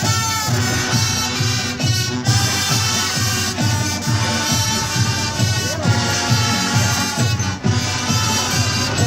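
Marching brass band playing: brass instruments holding chords over a steady drum beat.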